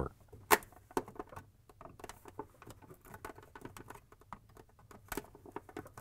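Flat blade screwdriver prying at a plastic ice maker head cover: scattered light scraping and tapping of metal on plastic. A sharper click comes about half a second in, and a few more near the end as the cover's clips let go.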